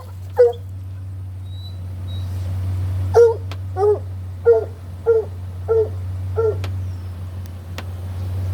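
Stray dog whining in short pitched yelps: one about half a second in, then a run of six, evenly spaced, from about three seconds in. A steady low hum runs underneath.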